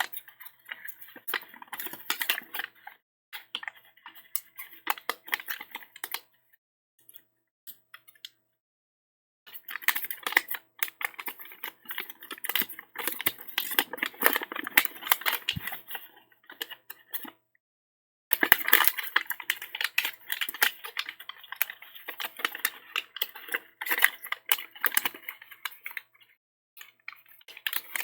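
Sheet of origami paper being folded and creased by hand: dense crackling and rustling. It stops for about three seconds roughly six seconds in, and again for a moment about two-thirds of the way through.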